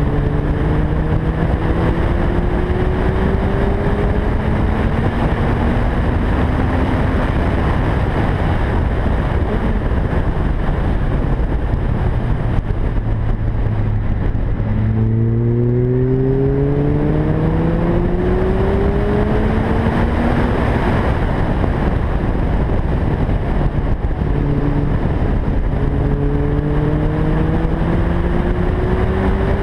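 2011 Lotus Elise's four-cylinder engine under hard acceleration. Its note climbs through the gears, drops to a lower steady note for a slow corner about halfway, then climbs again. Heavy wind noise on the microphone.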